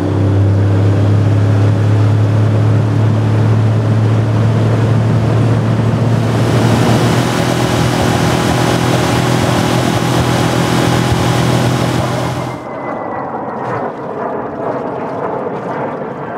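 Small tiller outboard motor pushing a jon boat at steady speed, a constant low engine hum. From about six seconds in, the rushing hiss of wake and spray joins it. Near the end the motor sound cuts off abruptly, leaving a quieter wash of water and wind.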